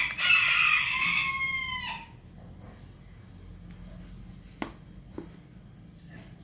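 A rooster crowing once, a single call of about two seconds that drops in pitch at the end. Two short knocks follow near the middle.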